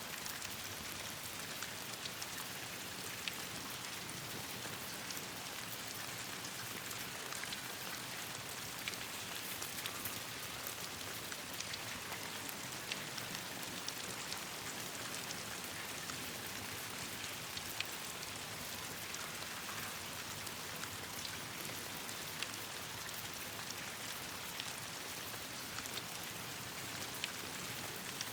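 Steady rain falling on leaves and branches, with a wood campfire crackling in scattered sharp pops.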